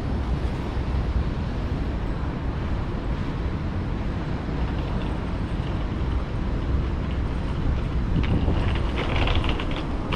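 Outdoor city street ambience: a steady noise of traffic with wind rumbling on the microphone. A few brief, higher-pitched sounds come in about eight seconds in.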